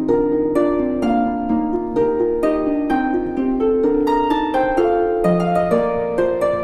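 Background music: an instrumental melody of plucked-string notes, struck at a steady pace of about two a second.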